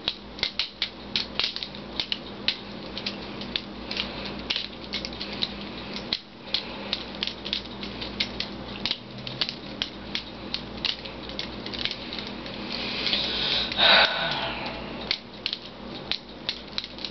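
Spyderco Smallfly balisong butterfly knife being flipped: a fast, irregular run of sharp clicks and clacks as the handles swing around the blade and knock together, several a second. A louder, longer rattling noise comes about thirteen seconds in.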